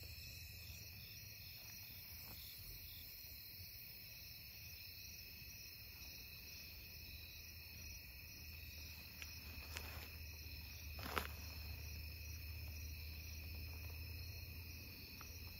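A steady chorus of night insects such as crickets and katydids, with an evenly pulsing call among them. A couple of short faint knocks come about ten and eleven seconds in.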